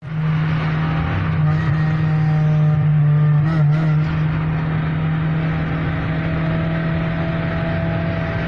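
Honda four-cylinder engine heard from inside the cabin, pulling hard at steady high revs during a roll race. There is a brief wavering in the sound about three and a half seconds in.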